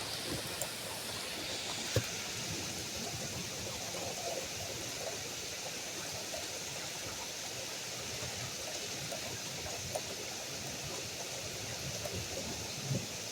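Steady rush of heavy thunderstorm rain, with a sharp tap about two seconds in and a few faint ones later.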